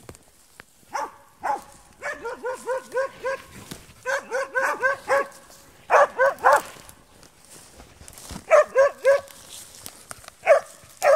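Spitz hunting dog bay-barking on a badger hunt: short barks in quick runs of several a second, with brief pauses between runs.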